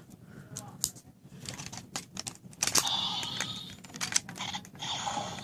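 Plastic toy clicking as a ranger key is handled and slotted into a Kaizoku Sentai Gokaiger transformation-phone toy, several sharp clicks in quick succession. About three seconds in, a thin, steady electronic tone from the toy's speaker starts.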